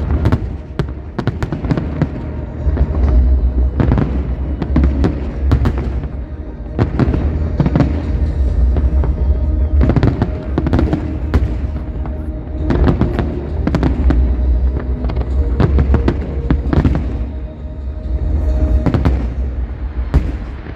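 Fireworks display: aerial shells bursting one after another, a dense run of sharp bangs and crackles over a deep rumble, with music playing underneath.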